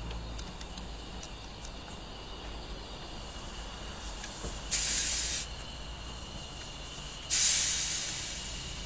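Small tank steam locomotive blowing off steam from its cylinder drain cocks as it moves off: two sudden loud hisses about two and a half seconds apart, the second longer and fading away.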